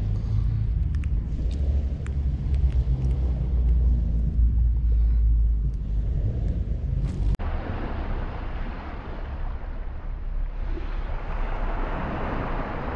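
Wind buffeting the microphone with a heavy low rumble, and a few faint clicks. After an abrupt cut about seven seconds in, small waves wash onto the beach with a steady hiss that swells near the end.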